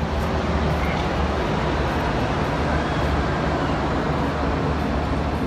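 NASCAR stock cars running on the speedway, a loud steady wash of engine noise that swells in at the start and holds.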